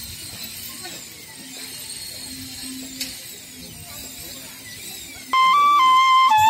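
Faint background for about five seconds, then a Chinese bamboo flute (dizi) comes in loudly, playing a melody of held notes that step down and up in pitch.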